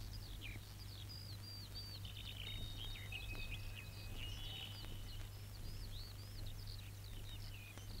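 Songbirds chirping and twittering: many short whistled chirps, some sliding up and some down, over a steady low hum.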